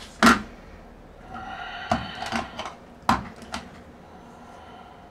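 Sharp knocks and clacks of objects being handled and set down on a table: one loud knock just after the start, then a few lighter ones about two and three seconds in.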